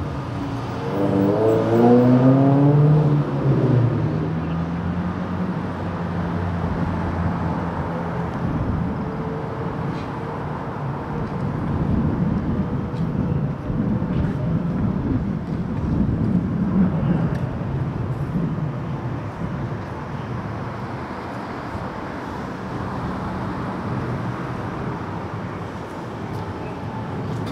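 Street traffic: a vehicle engine revs up in the first few seconds, its pitch rising, then a steady wash of passing-traffic noise.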